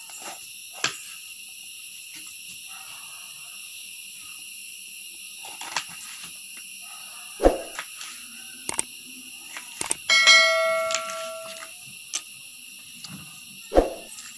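Knife cutting through an elephant foot yam flower on a cutting board: scattered sharp knocks of the blade striking the board, the loudest about halfway through and near the end. About ten seconds in, a bright ringing tone sounds and fades over a second or so, all over a steady high-pitched whine.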